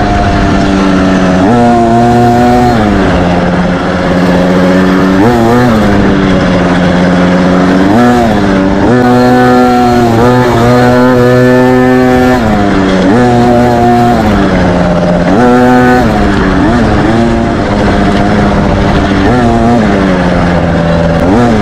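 Youth dirt bike engine, heard up close while riding, revving up and easing off again and again. Its pitch climbs sharply and falls back every one to three seconds.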